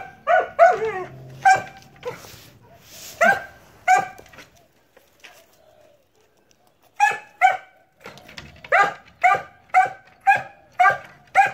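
A dog barking over and over in high-pitched barks. There is a cluster of barks at first and a pause of about two seconds in the middle. Near the end comes a steady run of about two barks a second.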